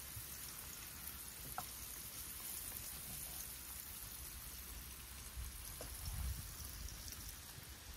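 Faint, steady sizzle of food frying in a pan on a portable camp stove, with a couple of small ticks.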